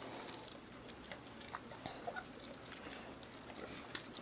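Faint wet licking and mouthing from an adult Leonberger grooming a puppy's head and neck, with scattered small clicks and one sharper click near the end.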